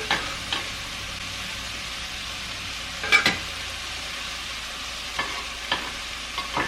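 Mushrooms, onion and garlic sizzling in a frying pan with a steady hiss as they are stirred, with a few sharp knocks against the pan, the loudest about three seconds in.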